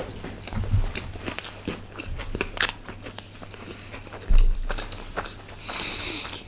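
Close-miked chewing and biting of pizza: many small wet mouth clicks and smacks. There is a low thump about four seconds in and a short hiss near the end.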